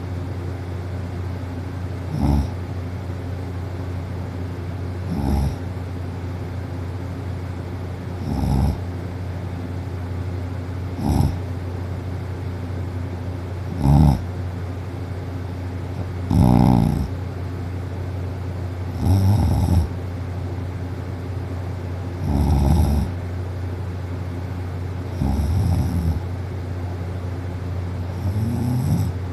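A girl asleep on her back snoring, about one snore every three seconds; the snores grow longer toward the end.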